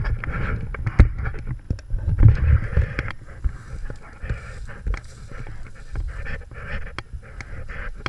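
Footsteps pushing through dense brush and tall grass: leaves and branches rustling against the body and the camera, with twigs snapping and scattered knocks, over uneven handling rumble.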